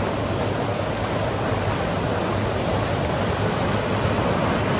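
Sea surf washing over a rocky shoreline: a steady, unbroken rush of water.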